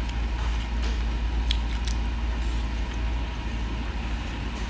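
Steady low rumble of background noise with a few light clicks of a plastic fork against a takeout bowl.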